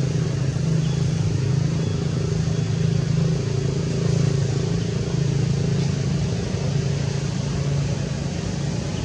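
A motor engine running steadily as a low, unbroken drone.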